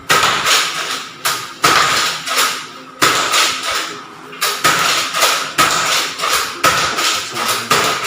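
Nerf Elite Retaliator dart blaster being primed and fired again and again, a sharp clacking shot roughly once a second in a small room.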